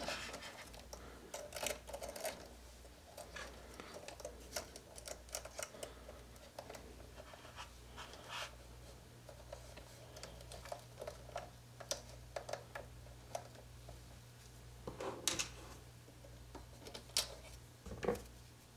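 Light clicks and scratches of small plastic and metal RC crawler parts being handled as a coil-over shock absorber is fitted to the suspension, with a few louder clicks near the end.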